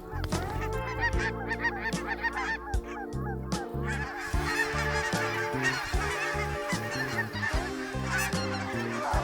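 A large flock of geese honking, many overlapping calls at once, over background music.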